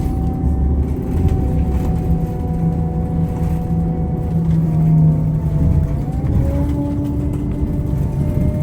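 City bus's engine and drivetrain running while the bus moves, heard from inside: a steady low rumble with thin whining tones that shift in pitch about six seconds in.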